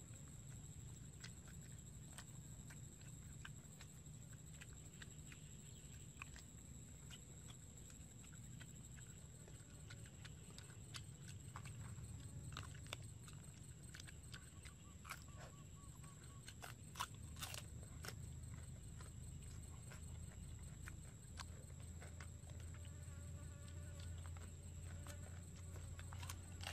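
Faint chewing of squid, with scattered soft clicks and a steady low hum underneath.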